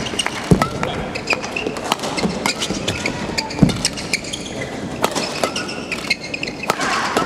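Badminton rally in an indoor hall: sharp racket strikes on the shuttlecock and shoes squeaking and stamping on the court, with two heavier thuds about half a second in and near four seconds.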